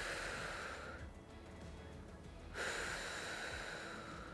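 A woman breathing hard into a close microphone in time with a seated dumbbell row: two long hissing breaths of about a second and a half each, with a short pause between them. Faint background music plays underneath.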